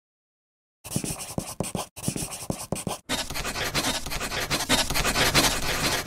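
Intro-logo sound effect: a dense, scratchy crackle of rapid clicks that starts about a second in. It drops out briefly twice, then grows louder and cuts off near the end.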